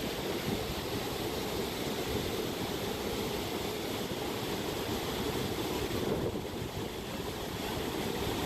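Rushing floodwater: a steady, even noise of fast-flowing water.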